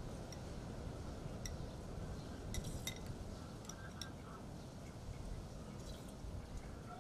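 Metal spoons clinking against glass soup bowls: a dozen or so light, separate taps scattered through, over a steady low background rumble.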